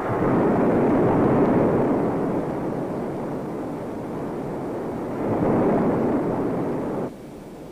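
The X-15's twin XLR-11 rocket engines burning in flight, a loud steady rushing roar that cuts off abruptly about seven seconds in.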